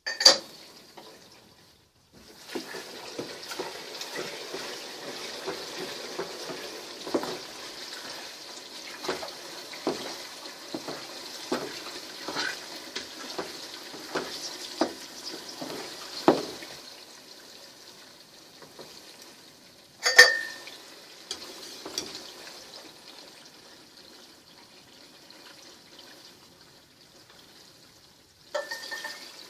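Pork leaf fat rendering in a pot, with a steady sizzle that thins out in the second half, and many small knocks and scrapes of a utensil working through it in the first half. A sharp, ringing metal clank near the start and another about two-thirds of the way through.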